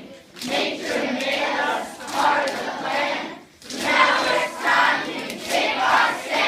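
A group of voices singing together in phrases, choir-like rather than one clear solo voice.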